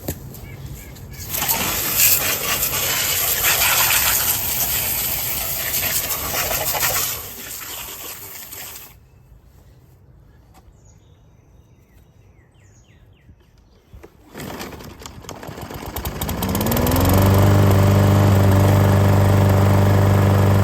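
Water from a garden hose spraying hard for several seconds, then a walk-behind lawn mower engine starting, climbing in pitch and settling into a loud steady run near the end, as the mower deck is rinsed.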